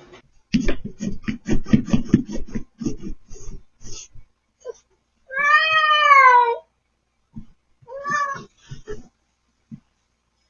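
Domestic cat meowing: one long meow that falls in pitch about halfway through, and a short meow near the end. Before the meows, in the first few seconds, comes a quick run of short pulses, about six a second.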